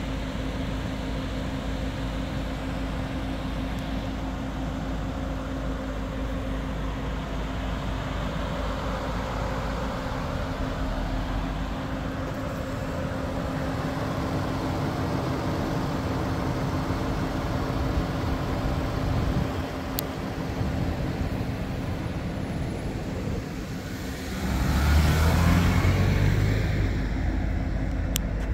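A motor running steadily, a constant hum over a low rumble. About 24 seconds in, a louder sound swells for two or three seconds and then eases off.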